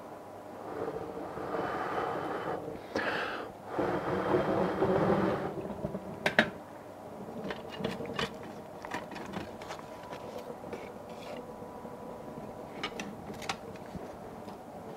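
Paper and kindling being handled and packed into a rocket stove's feed tube: rustling and scraping for the first few seconds, then scattered light clicks and taps.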